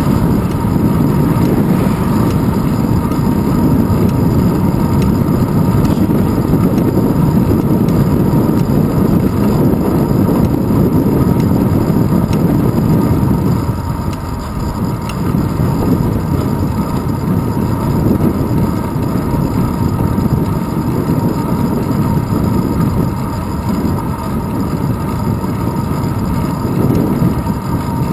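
Wind rumbling over a handlebar-mounted camera's microphone as a bicycle rides along an asphalt road, mixed with the hum of the tyres. The rumble eases a little about halfway through.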